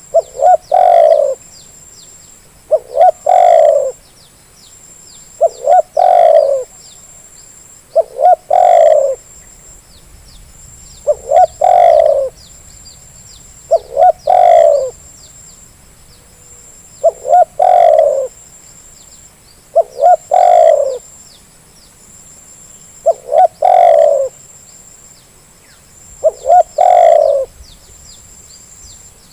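Spotted dove (terkukur) cooing: ten near-identical calls about every three seconds, each two short notes followed by a longer rolling coo. Faint high chirps of small birds sound in between.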